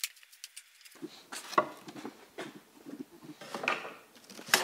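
Wooden boards and hand tools being handled on a workbench: scattered knocks and clatter of wood on wood, with one sharper knock near the end.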